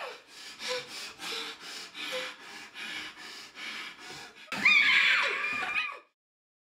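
A gagged woman breathing fast and hard through her nose, about three breaths a second. About four and a half seconds in she lets out a loud cry through the gag, bending in pitch, which cuts off suddenly about a second and a half later.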